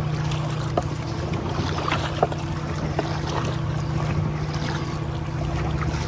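Canoe being paddled: paddles splashing, with a few sharp knocks of paddles against the canoe, over a steady low hum and wind on the microphone.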